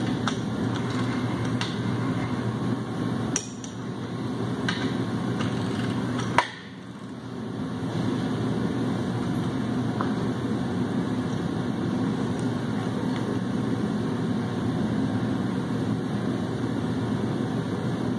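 Sharp metallic clicks from a torque wrench and socket as main bearing cap bolts are torqued down on a 7.3 Powerstroke engine block, five or six clicks spread over the first half, the loudest about six seconds in. A steady low hum sits underneath.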